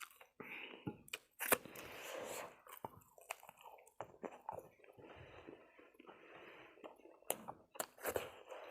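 A person chewing and biting spicy chicken wings, with irregular crunches and mouth clicks.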